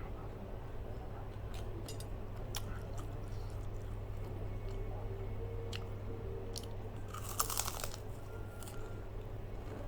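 A person chewing and crunching crisp fried food close to the microphone, with scattered crunches and a loud cluster of crunching about seven and a half seconds in.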